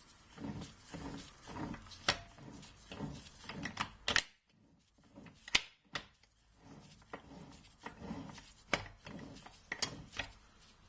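Tools and parts being handled on a workbench: irregular clicks and knocks with some rubbing in between.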